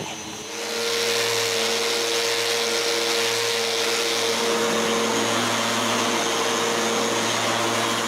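Electric random-orbit sander running steadily on a hardwood cabinet-door frame, with a constant whirring hum under a hiss. It rises to full level within the first second.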